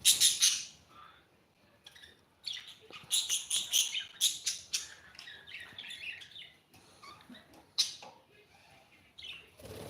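Pet cockatiel chirping: a loud cluster of high chirps at the start, a quick run of chirps in the middle, and one sharp chirp near the end.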